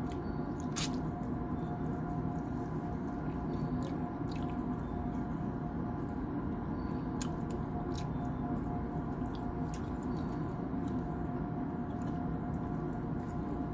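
A man chewing chicken, with short wet mouth clicks and smacks scattered throughout, a sharper one about a second in. Under it runs a steady hum with several fixed tones.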